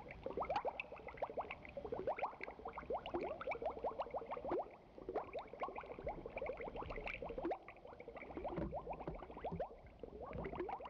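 Underwater bubbling sound effect: a faint, dense stream of small bubbles, each a short rising blip, thinning out briefly a couple of times.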